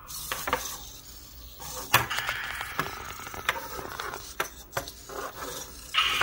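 SunFounder PiCrawler quadruped robot's small servo motors whirring as its plastic legs shift and tap on a desk, with scattered sharp clicks, knocks and scrapes. Near the end, a louder sound starts playing from the robot's PiHat speaker.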